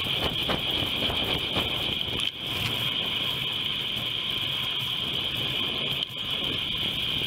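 Bicycle ride noise picked up by a handlebar-mounted action camera and played back at double speed: a steady high-pitched whine over rumbling road noise. It breaks off briefly about two seconds in and again about six seconds in.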